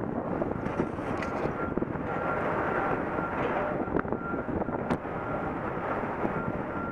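Strong wind rushing and buffeting the microphone while a flag flaps in it, with a faint whistle that comes and goes and a couple of sharp clicks near the middle.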